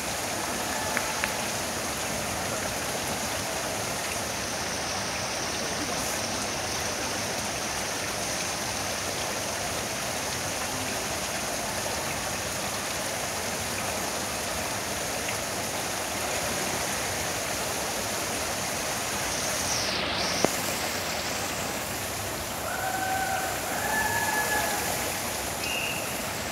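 Steady, even rushing ambience of a large swimming pool hall, like running water.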